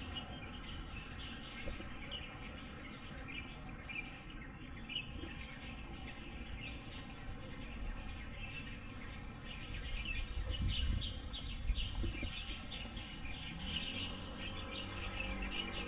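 Small birds chirping on and off, with a steady low rumble beneath that swells about two-thirds of the way through.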